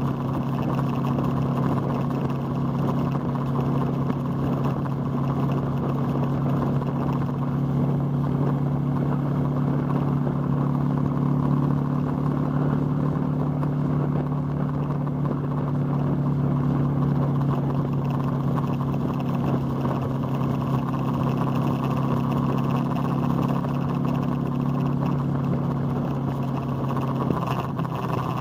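Motorcycle engine running at a steady cruise, heard from on board the bike. Its note steps down about a second before the end.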